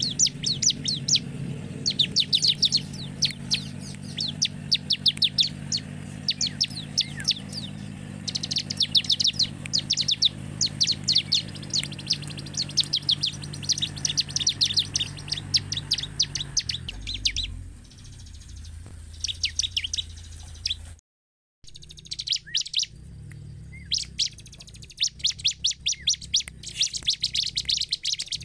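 Bar-winged prinia (ciblek) singing: quick high chirps run together in short rattling phrases, one after another with brief pauses. A steady low hum sits underneath for the first half or so, and the sound cuts out completely for a moment about two-thirds through.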